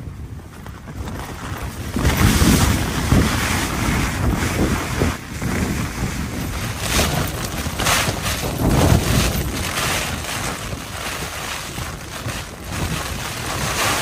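Storm wind gusting against a Hilleberg Nammatj 2 tunnel tent, the nylon fly shaking and snapping, with heavy wind rumble on the microphone. The gusts come in surges, with a loud one about two seconds in and another near the middle.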